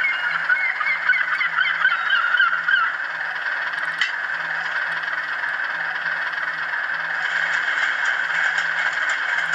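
Sound-decoder playback of a Class 37's English Electric diesel engine running, heard thin through a model locomotive's tiny speaker. A warbling, wavering squeal rides on top for the first three seconds, and there is a single click about four seconds in.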